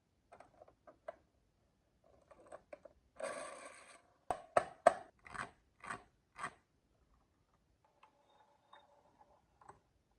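Marbles rolling and clacking down a wooden marble run: scattered light clicks, a short dense rattle about three seconds in, then a string of six sharp clacks a little over two a second. A faint steady hum comes in near the end.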